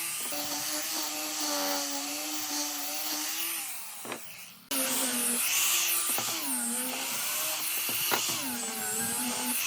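Electric power tool motor running at high speed, its pitch dipping repeatedly under load as it works wood and then recovering. The sound dies away about four seconds in and comes back abruptly a moment later, with a few sharp knocks in between.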